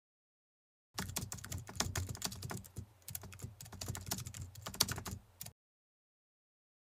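A quick, irregular run of clicks and taps lasting about four and a half seconds, starting about a second in and stopping suddenly.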